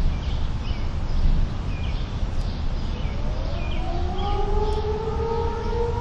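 Outdoor warning sirens for a tornado siren test begin winding up about halfway in, several tones rising in pitch and then levelling off. Steady low background rumble and small chirps run underneath.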